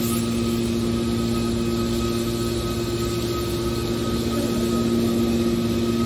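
Hydraulic scrap metal baler running, its motor-driven pump giving a steady hum with a few held tones as the rams move.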